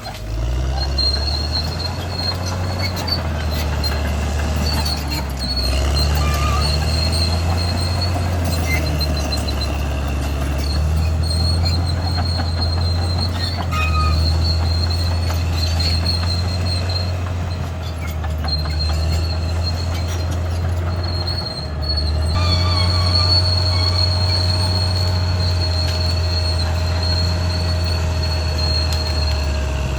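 Caterpillar D6R XL crawler bulldozer working: its diesel engine drones steadily under a high, steady squeal from the steel tracks. The engine note dips briefly and changes about two-thirds of the way through.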